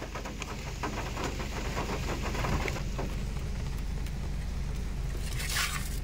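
Steady rain falling, with a low vehicle engine hum underneath and a brief loud hiss about five and a half seconds in.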